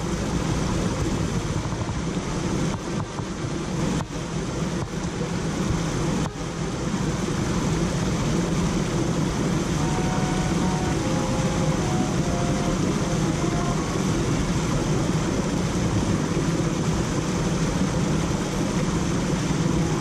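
Shallow mountain stream rushing over rocks: a steady water rush. A few faint clicks sound in the first seconds.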